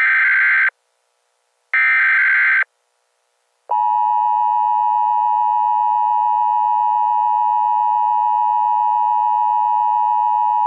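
Emergency Alert System signal: the last two short, buzzy digital header bursts, then about three-quarters of a second of silence, then the loud, steady two-tone EAS attention tone, which holds unchanged to the end.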